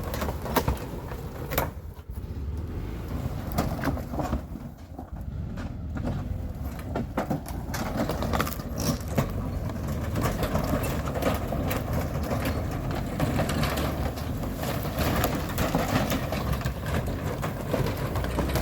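A vehicle's engine runs steadily while it drags an old wooden outhouse over the ground. Irregular cracks, knocks and scraping come from the wooden structure throughout.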